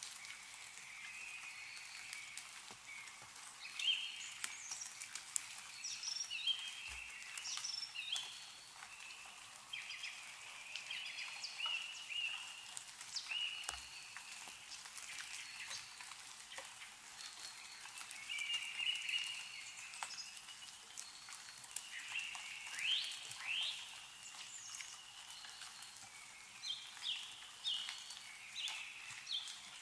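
Small birds calling with repeated short chirps, some in quick runs, over scattered drips of meltwater falling from snow-covered trees.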